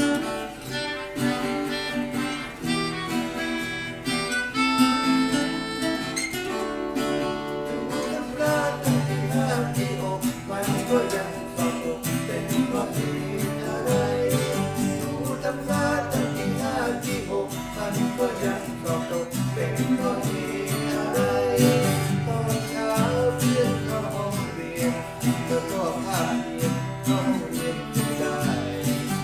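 A small acoustic band playing a Thai pop song: two acoustic guitars strumming chords over an Aria FEB-30M acoustic bass guitar's bass line. A melodica plays the melody in the opening seconds, and from about twelve seconds in, voices sing along.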